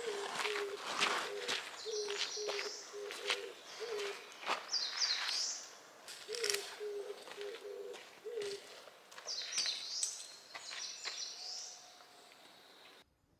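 A bird giving runs of short, low hooting notes that stop about eight seconds in. Higher chirping calls from another bird come twice, and sharp irregular clicks are heard throughout.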